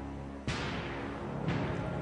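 Game-show background music with a low held drone, punctuated by a sharp hit about half a second in and a softer one a second later, as a quiz question is brought up.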